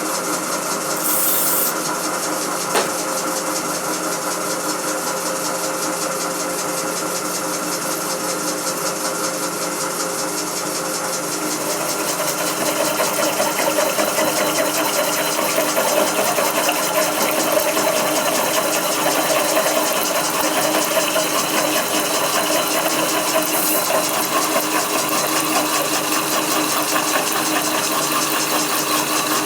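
A drill turning a carbide-tipped hole saw at 250 RPM, its motor running steadily. About twelve seconds in it gets louder and rougher as the saw grinds into 6 mm angle iron.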